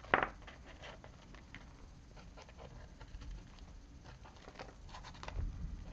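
Irregular light taps and clicks of a white paint marker worked on a paper journal page, with a sharper click just after the start and a few more taps near the end.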